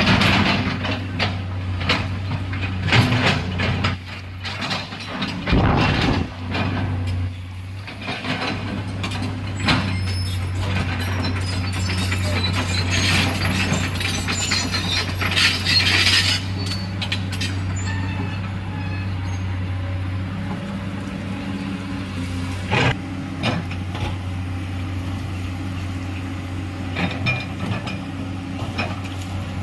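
Heavy excavator's diesel engine running steadily under load, with irregular clanks and scrapes of the bucket and tracks working through soil and rock, most frequent in the first half.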